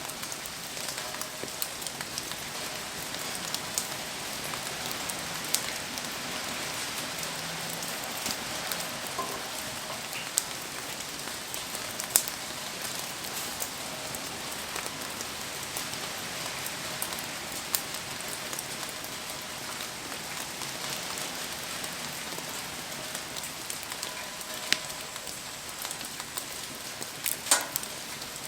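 Steady rain hiss with scattered sharp crackles and pops from a wood campfire burning in the rain. The loudest pops come in a short cluster near the end.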